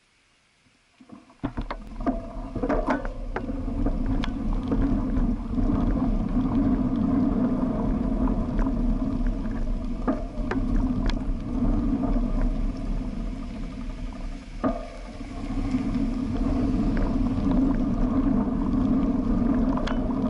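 Steady rolling rumble of wheels on rough asphalt close to a low-mounted camera, with a low buffeting of wind and scattered clicks and knocks from bumps in the road. It starts suddenly about a second and a half in and eases briefly about two-thirds of the way through.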